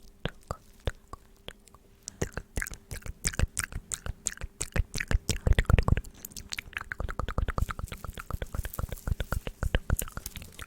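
Close-miked ASMR mouth sounds: wet clicks and smacks, a few slow ones at first, then quickening into a rapid run of clicks from about two seconds in.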